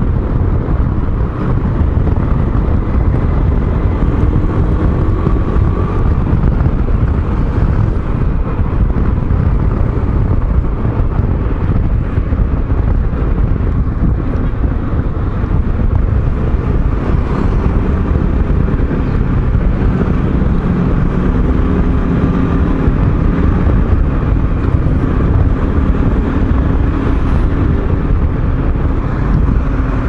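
Scooter engine running under a steady rush of wind on the microphone while riding, its hum drifting gently up and down in pitch.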